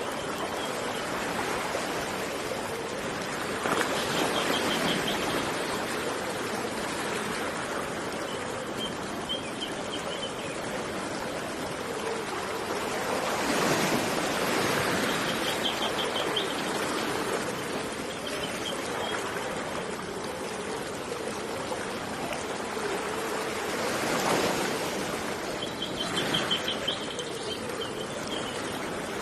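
Steady rush of running water that swells about every ten seconds, with a small bird giving short, rapid, high trills several times over it.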